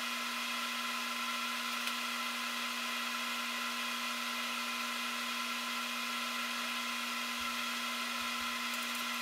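Steady machine hum and whir made up of several constant tones, unchanging throughout and cut in and out abruptly.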